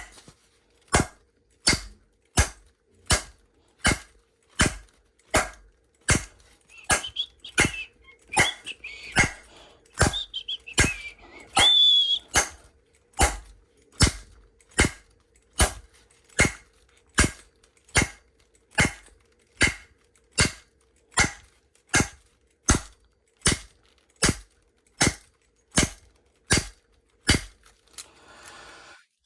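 A piece of wood striking a Disecu padlock over and over in a steady, evenly spaced run of sharp knocks, each less than a second apart. This is a brute-force impact test to see whether the lock's shackle fails. A faint wavering high squeak comes in among the blows from a quarter to nearly halfway in.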